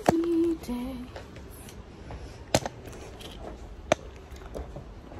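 A woman humming a couple of falling notes in the first second, then a few sharp knocks from handling the phone and things around it.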